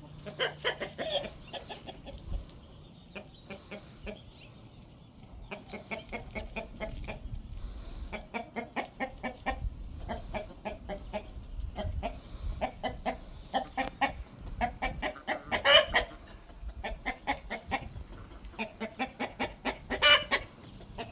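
Chickens clucking, a flock of hens giving many short, repeated clucks with a few louder calls about 16 and 20 seconds in.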